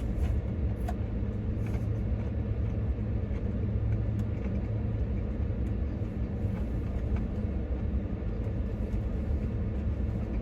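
Steady low hum of an idling vehicle engine, with a few faint clicks over it.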